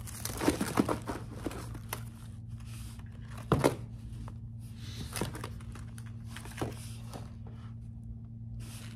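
Packaging rustling and crinkling as lure packs are handled and sorted through, busy for the first couple of seconds, then scattered handling clicks, the sharpest about three and a half seconds in. A steady low hum runs underneath.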